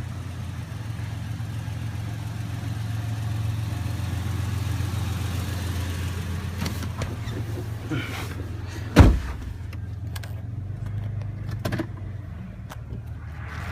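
Supercharged Toyota FJ Cruiser 4.0 V6 running steadily on a drive, on a freshly fitted headers-back exhaust. There is one loud thump about two-thirds of the way through, and a few lighter knocks shortly after.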